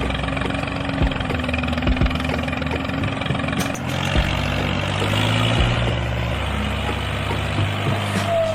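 A vehicle engine running steadily, its pitch shifting in steps about four and six seconds in, with a few short knocks.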